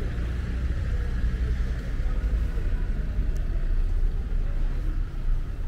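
Steady low outdoor rumble, with an even hiss above it.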